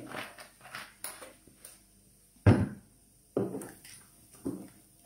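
Wooden spoon stirring liquid in a stainless steel pot: a string of short knocks and scrapes against the pot, with one louder thump about halfway through.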